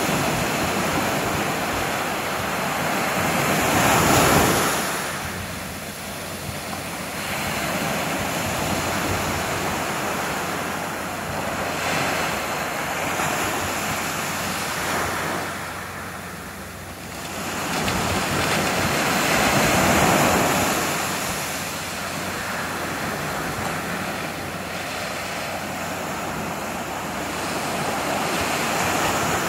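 Small ocean waves breaking and washing up a sandy beach, a steady surf wash that swells and eases slowly. It is loudest about four seconds in and again about two-thirds of the way through.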